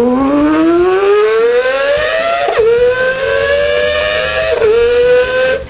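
An engine revving up hard, its pitch climbing and then dropping sharply twice as it shifts gear. It starts and cuts off abruptly.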